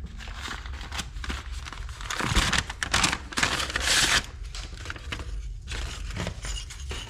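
Packaging crinkling and tearing while parts are dug out of a shipping box, in irregular rustles that are loudest about two to four seconds in.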